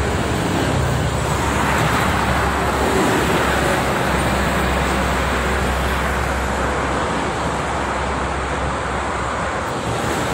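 Steady noise of heavy highway traffic: trucks and cars passing at speed on a multi-lane toll road, tyre noise over a low engine rumble.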